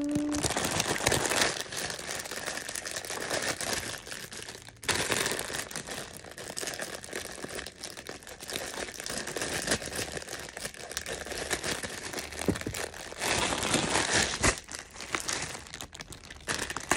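Thin plastic packaging bags crinkling and rustling continuously as they are cut open with scissors and handled. The crackling is loudest at the start and again about thirteen seconds in.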